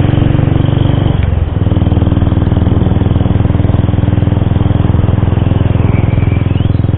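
Motorcycle engine running steadily at road speed, heard from the rider's own bike; the engine note breaks and dips briefly about a second and a half in, then picks back up and holds steady.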